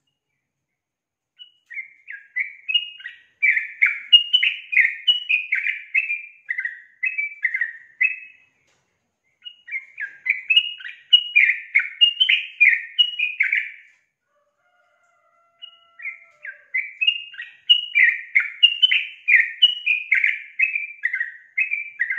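Female yellow-vented bulbul (trucukan) singing in three runs of quick, rapid chirping notes, each several seconds long, separated by short pauses.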